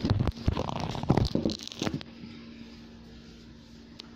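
Handling noise from a handheld camera being swung about: a cluster of thumps, knocks and rustling for about two seconds, then quieter with a faint steady hum and one click near the end.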